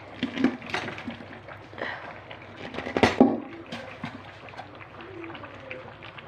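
Pieces of cassava being tipped into a metal cooking pot, with several clatters and knocks against the pot and a wet, sloppy sound. The loudest clatter comes about three seconds in.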